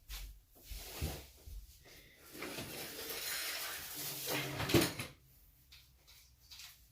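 Handling noises from a toy foam-dart blaster: scattered clicks and knocks, a longer scraping rustle in the middle, and a sharp plastic clack just before five seconds in.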